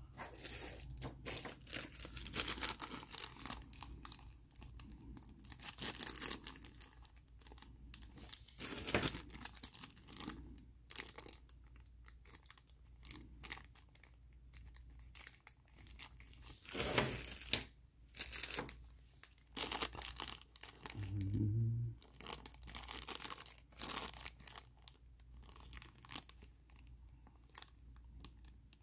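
Small clear plastic bags holding plastic miniatures crinkling and rustling in irregular crackles as hands handle and open them.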